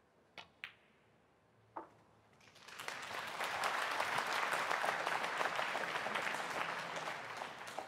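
Snooker cue tip striking the cue ball and the cue ball clicking into the object ball, a sharp double click, then a single knock a second later as the potted ball drops into the pocket. Audience applause swells from about two and a half seconds in and is the loudest sound.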